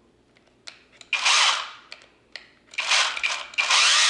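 Kobalt 24-volt 6-inch battery chainsaw running with its chain unoiled: a few clicks, then two short bursts of the motor and chain whirring, and a longer steady run starting near the end.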